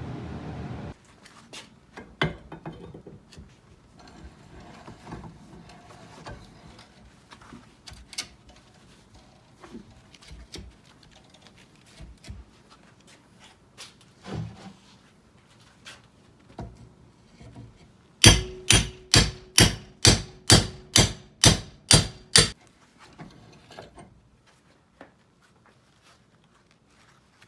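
Hammer blows in a workshop: scattered knocks and handling clicks, then a quick run of about a dozen loud strikes, roughly three a second, each with a ringing note. Near the end it drops back to a few faint knocks.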